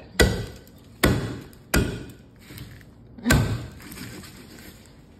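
Meat cleaver chopping down into a packet of fish on a wooden cutting board: four heavy blows, three in quick succession and a fourth after a pause.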